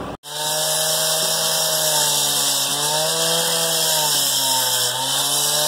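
Handheld two-stroke cut-off saw with a diamond blade cutting a precast porous concrete slab: a steady engine note whose pitch sags and recovers a few times as the blade works, over a harsh grinding hiss from the cut.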